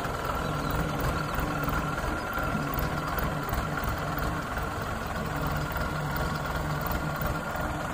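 A tractor's diesel engine idling steadily, with an even low chug.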